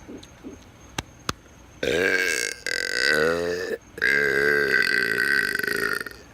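A man's long, loud burp, about four seconds of it, pushed out in three stretches with two brief breaks, its pitch bending as it goes.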